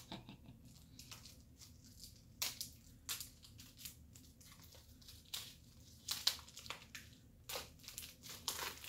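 Plastic shrink-wrap crinkling and tearing as it is peeled off a sealed hardcover book, in scattered sharp crackles that come thicker near the end.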